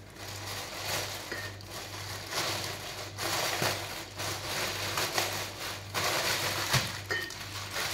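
Plastic packaging rustling and crinkling irregularly as it is handled and unwrapped, with a low steady hum underneath.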